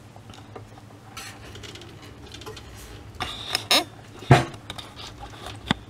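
Handling noises from a moving-head stage light's housing and parts being picked up and moved around: light rustles and clicks, a quick run of clattering clicks, then one sharp knock a bit past four seconds in.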